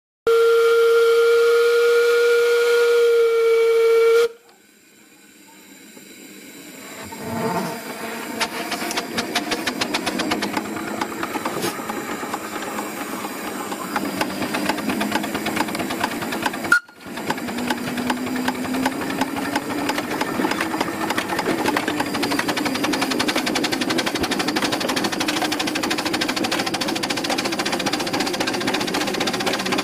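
Miniature live-steam traction engine blowing its whistle in one steady blast of about four seconds, then running with its exhaust chuffing in a quick, even beat over a steady hiss of steam.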